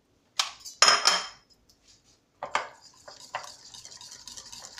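Loud clatter of crockery and utensils being handled, then from about three seconds in a metal wire whisk beating a thick mascarpone and condensed-milk cream in a ceramic bowl, with fast, even clicking and scraping against the bowl.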